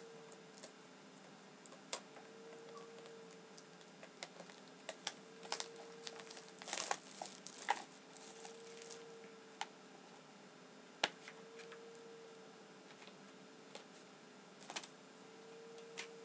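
Plastic DVD case and its packaging being handled and opened by hand: scattered sharp clicks and snaps, with a burst of crinkling about seven seconds in.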